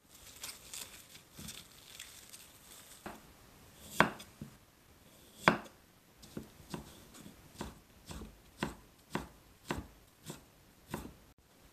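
Plastic cling film crackling as it is peeled off, then a kitchen knife cutting cucumber on a wooden cutting board: two loud single chops, then a steady run of knife strokes about two a second as it is cut into thin strips.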